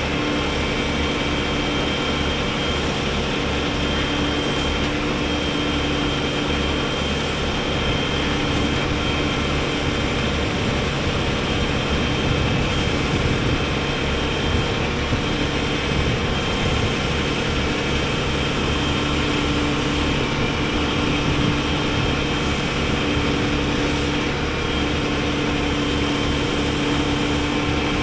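Rollback tow truck's diesel engine running steadily with the hydraulics working the bed. A steady whine sits over the engine as the loaded bed is brought back toward level.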